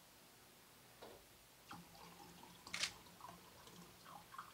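Water poured in a thin stream from a bottle into a drinking glass, faint, with one sharp tick a little under three seconds in.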